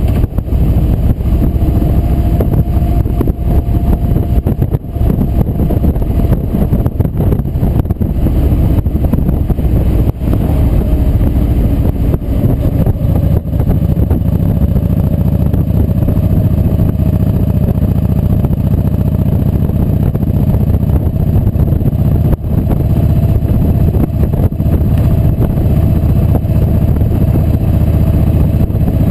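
Kawasaki Vulcan 1700 Voyager's V-twin engine running steadily at cruising speed on the road, with a steady low drone and a faint whine above it.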